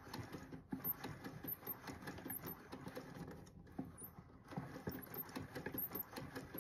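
Plastic linkage arms and crank of an opened diaphragm gas meter worked by hand, making rapid, irregular light clicking and rattling that pauses for about a second a little past halfway.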